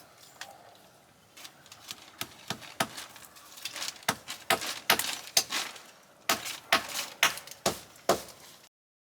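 Irregular knocks, clicks and clatter of camping gear being handled and set down. They start sparse, get denser and louder partway through, and stop abruptly near the end.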